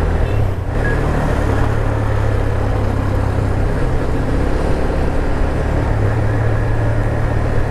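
Single-cylinder engine of a Dafra Next 250 motorcycle running steadily while riding in traffic, with road and wind noise over it.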